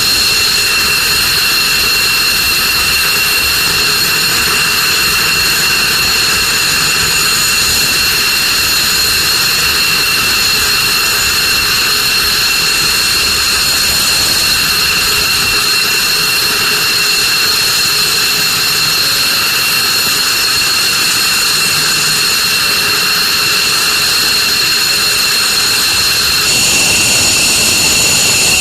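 F-15 Eagle's twin turbofan engines running steadily, a loud jet rush with a constant high-pitched whine of two steady tones. About two seconds before the end the upper hiss grows slightly louder.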